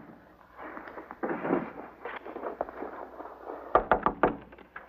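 Rustling and handling noises, then a quick run of five or six knuckle raps on a wooden door near the end.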